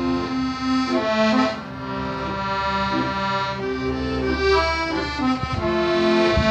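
Slow instrumental background music: a melody of long held notes changing about once a second.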